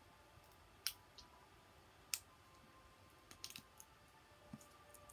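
A handful of faint, sharp clicks over near silence, from eating sticky melted candy out of a small plastic cup held at the mouth. The two clearest come about one and two seconds in, followed by a quick little cluster a bit after three seconds.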